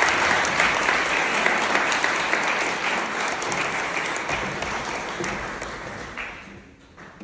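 Audience applauding, the clapping gradually fading and dying away near the end.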